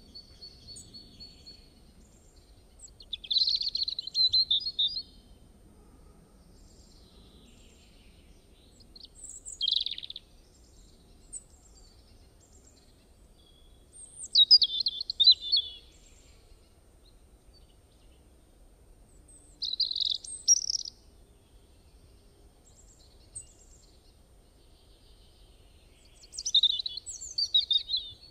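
Bird song: five short phrases of high chirps and warbles, about every five to six seconds, with a faint low background noise between them.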